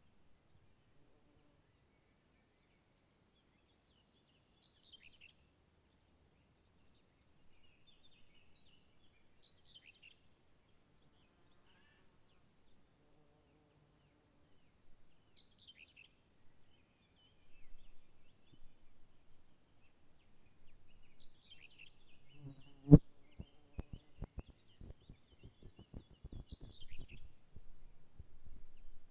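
A steady high insect trill, typical of crickets, with short falling chirps every few seconds. In the last third irregular crackling knocks set in, with one sharp loud knock about 23 seconds in.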